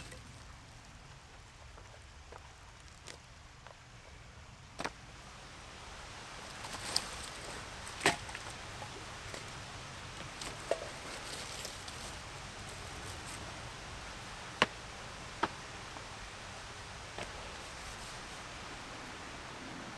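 A handful of sharp, irregular knocks and clicks, the loudest about eight seconds in and again near fifteen seconds, over a faint steady hiss that grows a little from about six seconds in.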